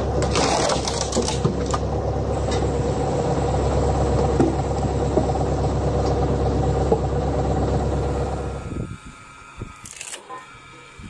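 Tractor engine running steadily, driving a hydraulic log splitter, with a few sharp cracks and clatters in the first second or so. Near the end the engine sound cuts off, leaving a few faint knocks.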